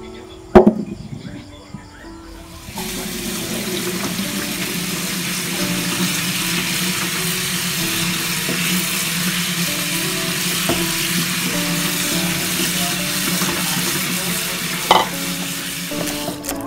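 Tap water running onto diced vegetables in a wire strainer over a stainless steel sink: a steady splashing hiss that starts about three seconds in, after a single sharp knock near the beginning.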